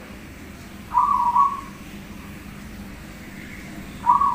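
Zebra dove (perkutut) cooing: two short coos about three seconds apart, each broken into a couple of quick notes, the second starting near the end.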